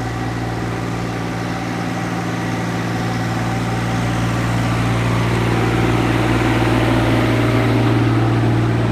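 An engine running steadily with a low, even hum, getting a little louder about halfway through.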